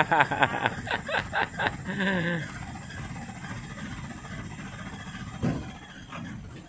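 A voice calls out over the first two seconds or so, then a loaded light truck's engine runs steadily at low revs as the truck crawls through deep mud.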